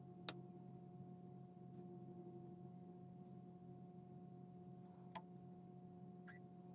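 Near silence: a faint steady hum of room tone, with two small sharp clicks about five seconds apart.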